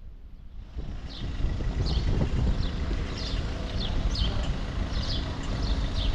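Wind rumbling on the microphone over street traffic, swelling up about a second in and holding. Over it, a bird chirps again and again in short, high, falling notes, about two a second.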